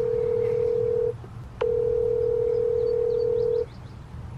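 Phone ringback tone on speakerphone while an outgoing call rings: a steady mid-pitched tone held about two seconds, a short break with a click, then about two seconds more before it stops.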